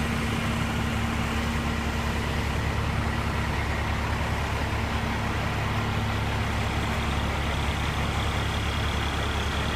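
Fire engine idling with a steady low rumble. A faint steady hum fades out about four seconds in.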